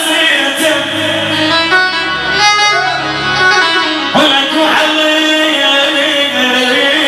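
Live Iraqi popular music: a man singing into a microphone over an amplified melody instrument, at a steady loud level.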